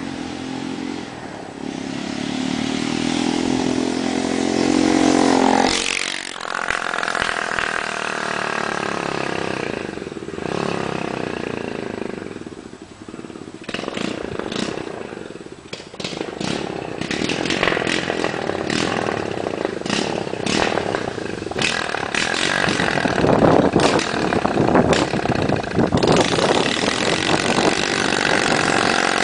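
Unmuffled open exhaust of a 1974 Honda CT70 minibike with a 125cc single-cylinder engine, revving in rising sweeps, then riding away and back with the engine note rising and falling through gear changes. Sharp cracks come from the exhaust as the bike approaches and grows louder in the second half.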